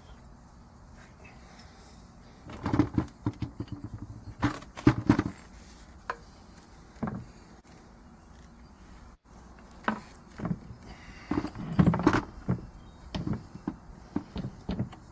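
Short metallic clinks and knocks of a tool working the drain grub screw on the gearbox of a Seagull 40 Featherweight outboard, in two bursts of handling, to let out old gear oil.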